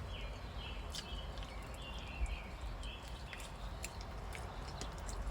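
Outdoor ambience: a run of short, high chirps repeating about twice a second during the first three seconds, with scattered sharp clicks over a low steady rumble.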